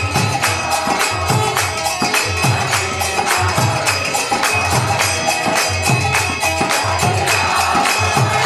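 Kirtan ensemble playing: a harmonium sounds held reed chords, a mridanga drum beats low strokes, and karatalas (small brass hand cymbals) clash in a fast, steady rhythm. A group of voices chants along, most clearly near the end.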